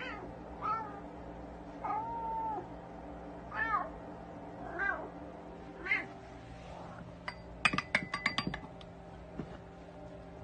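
Domestic cat meowing about six times, short calls with one longer, drawn-out meow near the start. In the last third comes a quick cluster of sharp taps, louder than the meows.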